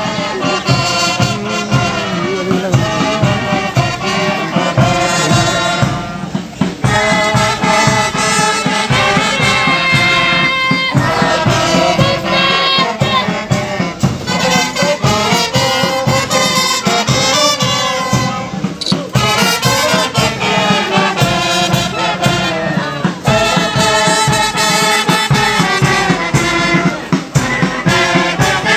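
Brass band playing a march, melodic phrases over a steady beat.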